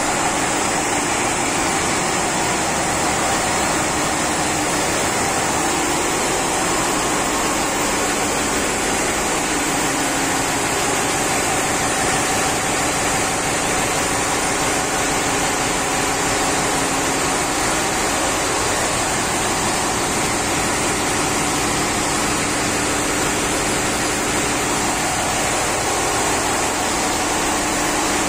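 Ship's auxiliary diesel generator sets running steadily, a loud, even engine-room din with a faint steady hum in it.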